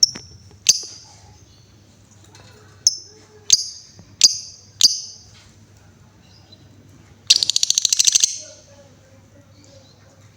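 Female lovebird singing: six sharp, high chirps ('ngetik') in the first five seconds, then a rapid rattling trill ('ngekek') lasting about a second.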